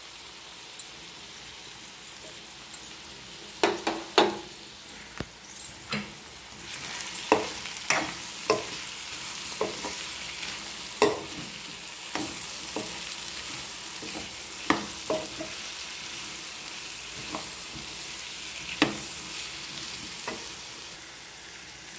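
Potato and cucumber pieces sizzling in oil in a metal pan. From a few seconds in, a metal spoon scrapes and knocks irregularly against the pan as the curry is stirred.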